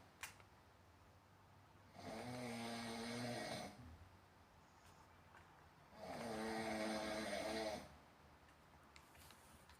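Snoring: two long, buzzy snores about four seconds apart, each lasting under two seconds, with quieter breathing between them.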